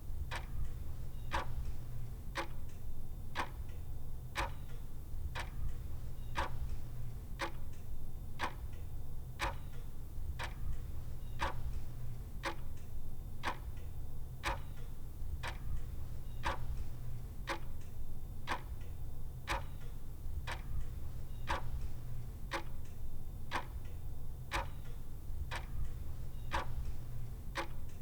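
Clock ticking steadily, with sharp, evenly spaced ticks coming a little faster than one a second. A steady low rumble runs underneath.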